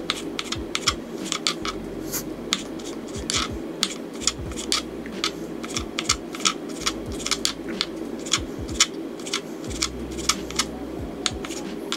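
Kitchen knife dicing raw shrimp on a wooden cutting board: quick taps of the blade on the board, about two to three a second.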